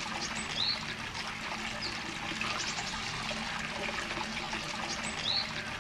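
Hot-spring water trickling steadily into an outdoor bath, with a few short high chirps above it.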